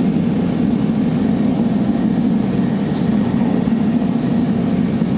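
Gas torch flame burning with a steady, even roar while it heats a chisel body for tempering.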